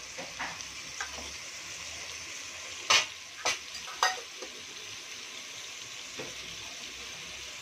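Mutton masala with curd sizzling steadily in an open pressure cooker on the flame. Three sharp knocks come in quick succession about half a second apart, a few seconds in.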